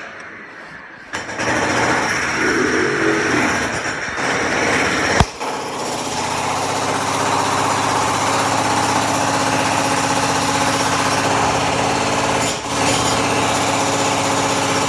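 Construction machinery with a small engine or motor. It starts up loud about a second in, gives one sharp knock near the middle, then runs steadily with a brief dip near the end.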